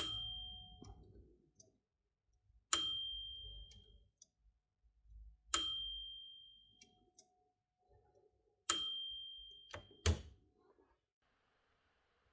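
Mechanical typewriter end-of-line bell struck four times, about three seconds apart, each a bright ring that dies away within a second. A sharp mechanical click follows about ten seconds in.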